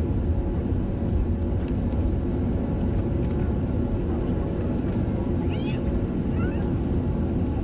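Airliner cabin noise while taxiing: a steady low rumble from the engines and airframe, heard from a window seat.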